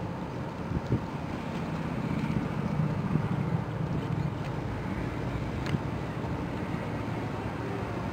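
Wind buffeting the microphone over a low, steady engine rumble from ships on the water.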